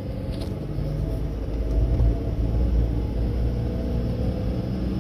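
A car driving slowly, heard from inside the cabin: a steady low rumble of engine and tyres that swells a little partway through.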